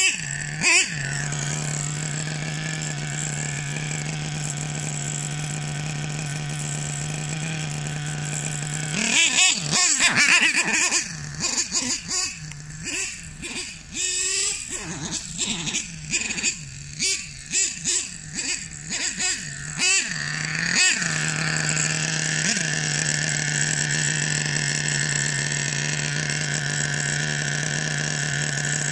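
Nitro RC monster truck's Hobao Hyper 30 Turbo glow engine running steadily, then from about nine seconds in revved in short, uneven bursts as the truck drives, before settling back to a steady idle after about twenty seconds. The engine is not yet tuned and bogs on the throttle.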